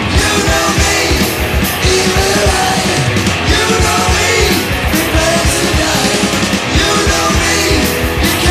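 Loud punk rock music: a sung vocal over a steady, driving drum beat.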